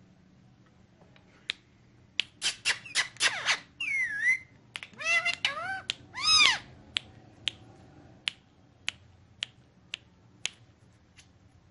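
Ringneck parakeet giving a quick run of short chirps and squawks, ending in one loud arched call, then a string of sharp clicks at about two a second.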